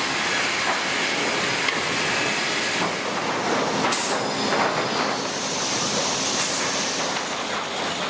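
Sawmill machinery running: the steady rattle and rumble of chain-and-roller conveyors carrying squared timbers. Two short hisses cut through, about halfway through and again a couple of seconds later.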